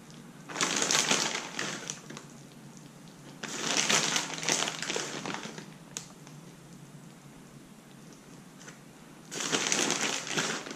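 Three bursts of crackly, crunching noise, each one to two seconds long, as more cheese is put on top of the eggplant parmesan.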